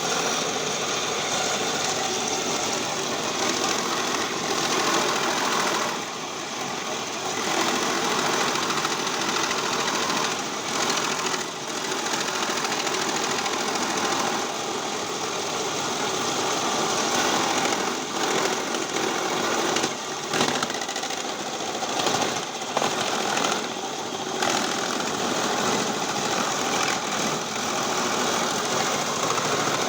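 Cassava shredding machine running with a continuous mechanical clatter, its level dipping and rising several times, with a few sharp knocks about two-thirds of the way through.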